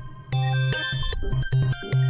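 Trap beat playing back at 150 BPM: a Serum software-synth melody of short and held notes over a deep, pulsing bass.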